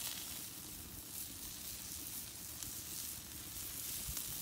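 Salvadoran chorizos sizzling on a grill grate over a wood fire: a steady hiss with faint crackles, and a brief low bump near the end.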